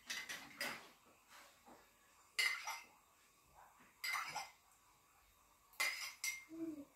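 A spoon clinking against a small glass and dishes while cake layers are moistened: about five separate short clinks, a second or two apart.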